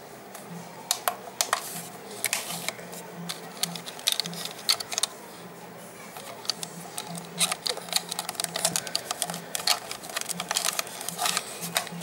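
Irregular plastic clicks and taps from fingers handling a toy RC car's transmitter and its charging plug, in clusters with short pauses between them.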